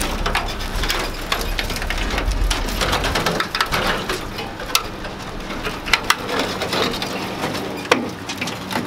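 Rusted sheet-metal body parts of a 1932 Ford BB truck being wrenched and lifted off, with continuous crunching and scraping of rusty metal and a few sharp clanks. A low rumble underneath stops about three seconds in.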